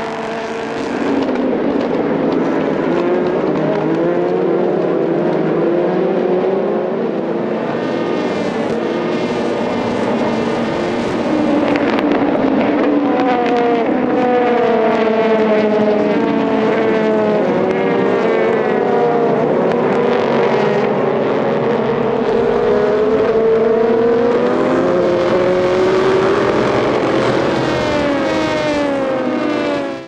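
A pack of Le Mans prototype race cars, V8-engined, running flat out, their engine notes overlapping. Each note climbs and drops back as the cars shift up through the gears, and some fall in pitch as cars pass.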